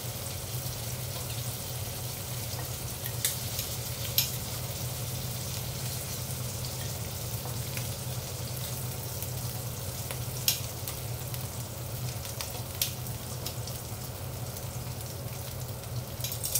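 Shrimp sizzling in hot oil in a wok: a steady frying hiss over a low hum, broken by a few sharp clicks of metal tongs against the pan as the shrimp are lifted out.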